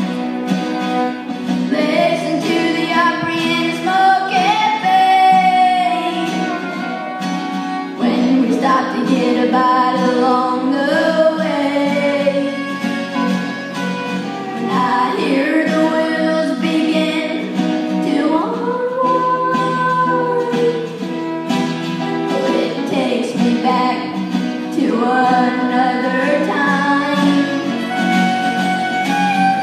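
Live traditional country song: fiddle and two acoustic guitars playing behind a singing voice.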